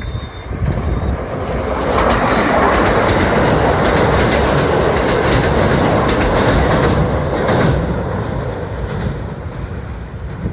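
Kintetsu electric train passing at speed, its wheels clacking over the rail joints. The noise builds over the first couple of seconds, stays loud through the middle, then eases off near the end.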